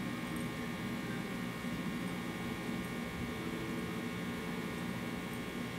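Steady electrical hum with faint hiss, unchanging throughout: background room tone with no distinct sound event.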